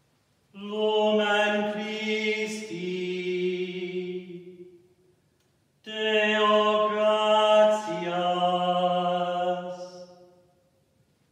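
A priest chanting unaccompanied in two phrases of a few held notes, each stepping down in pitch, with a short pause between them: the sung acclamation as the Paschal candle is raised at the Easter Vigil.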